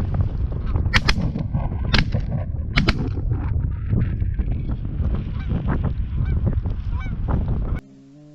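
Geese honking over heavy wind rumble on the microphone, with three sharp cracks about a second apart near the start. Near the end the sound cuts off abruptly to a much quieter background.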